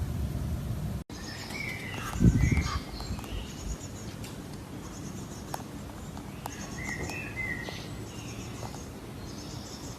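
Birds chirping in short, repeated high chirps and trills, with a low thump about two seconds in.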